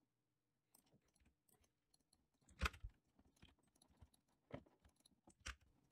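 Near silence broken by a few faint clicks of a computer mouse and keyboard, the loudest about two and a half seconds in and two softer ones near the end.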